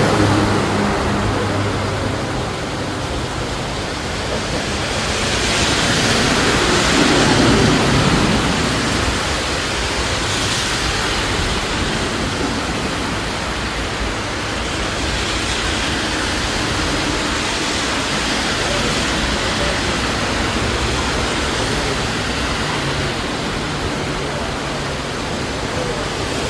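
Steady rushing noise of water, swelling for a few seconds around six to eight seconds in.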